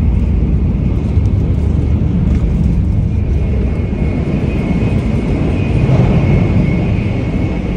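Inside an N700A Shinkansen bullet train running at speed: a steady deep rumble with a thin high whine over it. It grows a little louder about three quarters of the way through, in the gangway between cars.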